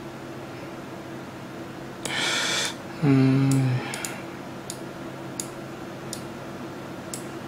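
Computer mouse clicks, one roughly every 0.7 s in the second half, with two quick clicks near the end. Before them a man breathes out briefly and hums a short 'mm' at a steady pitch, which is the loudest sound. A faint steady computer hum sits underneath.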